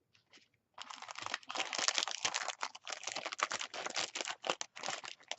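Packaging crinkling and rustling in the hands, with a rapid patter of small crackles, starting about a second in.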